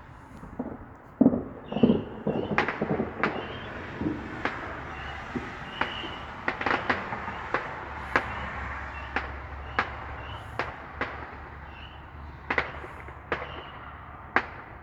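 Many sharp bangs and cracks of New Year's Eve fireworks mixed with gunshots. A dense run of reports comes in the first few seconds, then single cracks follow every second or so.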